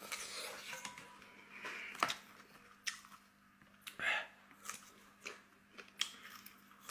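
A person chewing and biting food close to the microphone: wet mouth sounds with scattered sharp crunches and clicks, one louder crunchy burst about four seconds in.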